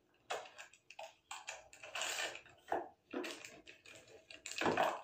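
Plastic packaging crinkling and clicking in the hands as a pair of sunglasses is unwrapped, in short irregular bursts.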